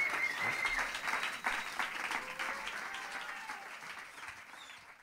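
Audience applauding after a live band's song, fading out toward the end.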